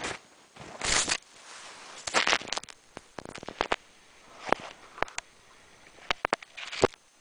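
Handling noise from a small camera picked up out of the snow: fingers and snow rubbing, scraping and knocking on the microphone, with irregular crunches and sharp clicks.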